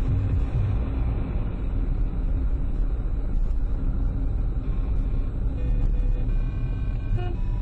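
Steady low road and engine rumble of a car driving in traffic, heard from inside the cabin.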